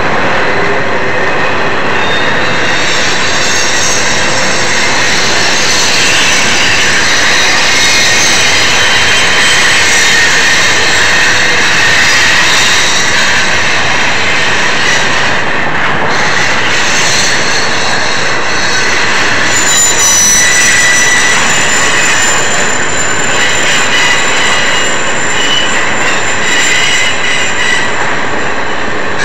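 Union Pacific intermodal freight train's container and trailer cars rolling steadily past close by, a continuous rumble of steel wheels on rail with high-pitched wheel squeal held over it, the squeal strongest about two-thirds of the way through.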